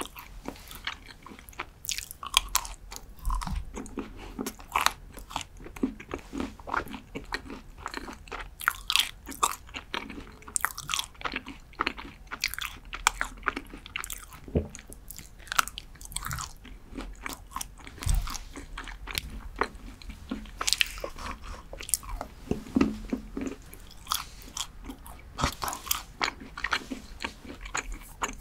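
Close-up biting and chewing of a Ferrero Rocher dark chocolate bar: repeated crisp snaps and crunches as pieces break off and are chewed, at an irregular rhythm.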